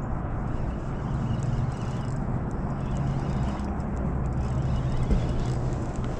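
Bow-mounted electric trolling motor running with a steady low hum, with a single light knock about five seconds in.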